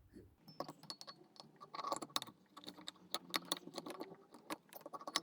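Many quick, irregular light clicks and clinks of small metal carburetor parts and screws being handled as a Kawasaki KLR650 carburetor is put back together.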